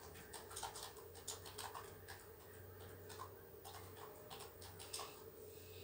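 Quiet room tone: a faint steady hum with scattered faint ticks.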